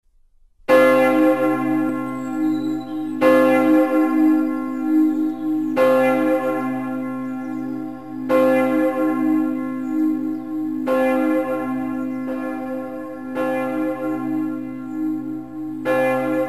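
A large bell tolling slowly, struck about every two and a half seconds, seven strokes in all, each ringing on into the next. It starts from silence just under a second in.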